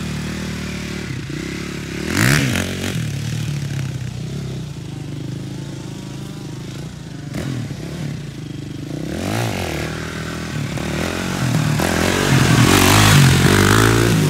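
KTM 450 SX quad's single-cylinder four-stroke engine revving up and down as the ATV is ridden hard on grass. Sharp blips come about two seconds in and again around nine seconds. It is held louder and higher near the end as the quad is lifted into a wheelie.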